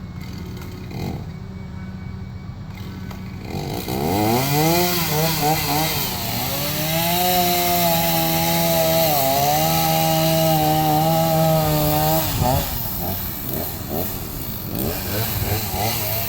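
Chainsaw idling, then revved up about four seconds in and held at full throttle while cutting wood, dipping briefly midway. It drops back near the end and is then revved unevenly.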